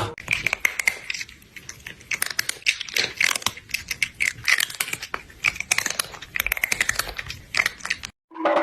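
Rapid, irregular clicking of typing on a computer keyboard, stopping abruptly near the end.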